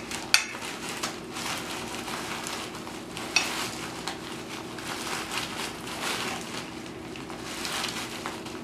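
Ritz crackers being crushed by hand inside a plastic zip bag: a steady crinkling, crunching rustle, with a couple of sharp clicks.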